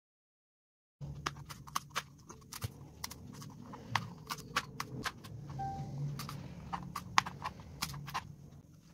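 Kitchen knife slicing chillies on a plastic cutting board: irregular sharp taps of the blade hitting the board, a few a second, starting about a second in, over a low background hum.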